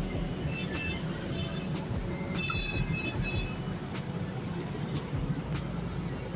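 Busy street noise, with engines running and a horn-like tone about two and a half seconds in, over background music with a steady beat.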